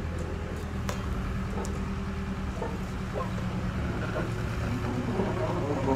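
Vehicle engine running steadily at idle, with one sharp click about a second in.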